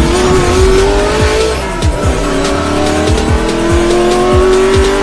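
A racing-car engine revving up over a music track with a steady thumping beat. The engine pitch climbs, drops back about a second and a half in, then climbs slowly again.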